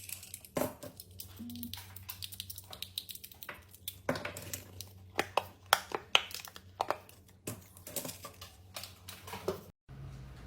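Irregular crinkling and crackling of craft material being handled, with many sharp clicks, stopping abruptly near the end.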